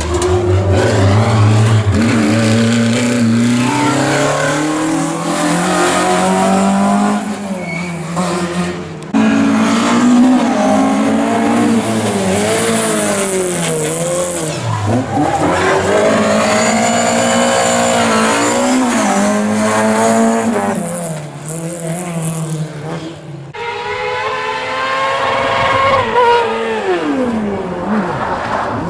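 Rally car engines driven hard at speed, revving up and dropping back as the drivers change gear and lift. It comes in three separate passes with abrupt cuts between them, about a third of the way in and again near the end.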